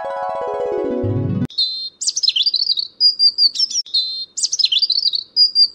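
A buzzy, falling cartoon sound effect slides down in pitch for about a second and a half and cuts off. Then comes birdsong: quick, high chirps and trills in short repeated phrases.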